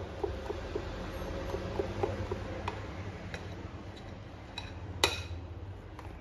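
A utensil stirring thick batter in a glass bowl, clinking against the glass in quick, regular strokes, with one sharper, louder clink about five seconds in.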